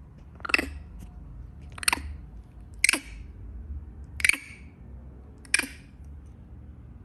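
A young monkey giving five short, sharp squeaks about a second apart: the frightened 'kriiikk' call.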